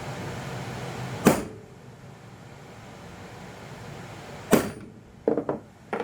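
A steady low hum cuts off just after a second in, followed by a sharp knock, another knock about four and a half seconds in, and a quick run of smaller knocks near the end.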